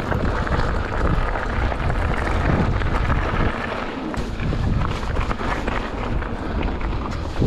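Mountain bike riding fast down a rocky gravel trail: tyres crunching over loose stones, with frequent knocks and rattles from the bike over bumps and wind buffeting the microphone.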